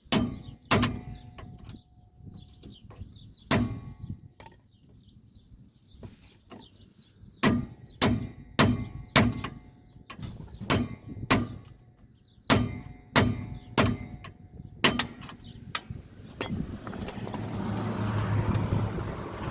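A hammer striking a chisel, held in a chisel holder, against a worn-out wheel bearing race about sixteen times, each blow sharp with a short metallic ring. The blows come in bursts about half a second apart as the race is beaten to split and drive it out. Near the end a steady rising noise with a low hum comes in.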